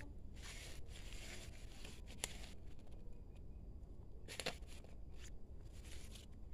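Faint rustling and scraping of rubber-gloved hands working potting soil and plant roots around a plastic pot, with two sharp ticks about two and four and a half seconds in, over a steady low rumble.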